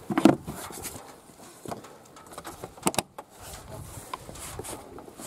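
Plastic air filter housing cover of a Hyundai Solaris being handled and pressed down over a new filter, with scattered plastic clicks and knocks, the loudest just after the start and a sharp click about three seconds in.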